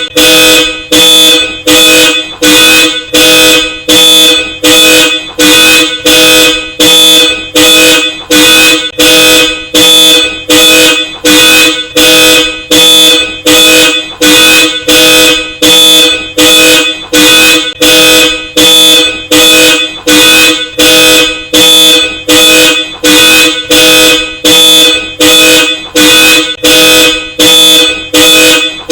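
Hella Supertone dual-tone car horn honking in a steady car-alarm pattern, short loud blasts at about three every two seconds, evenly repeated without a break.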